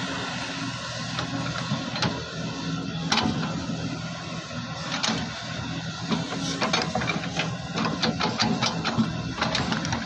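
Excavator's diesel engine running steadily, with a quick run of clanks and knocks in the second half as it digs into the hillside.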